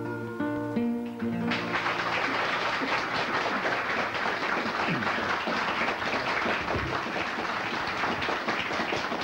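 A folk duet's held final sung note with guitar accompaniment, then audience applause, dense clapping from about a second and a half in.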